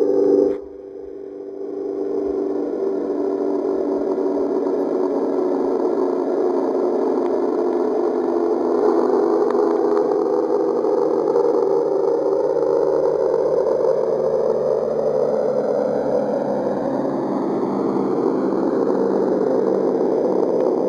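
Steady electronic drone given as the "sound" of the exoplanet Kepler-62e: a deep hum with overtones that slowly sweep up and down. It fades in over the first couple of seconds after a short dip.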